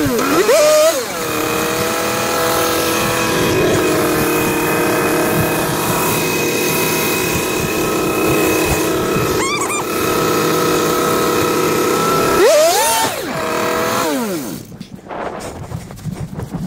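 Yamaha Enticer snowmobile's two-stroke engine running at a steady speed. It dips and picks up again in the first second. Near the end it revs up briefly, then its speed falls away and it stops.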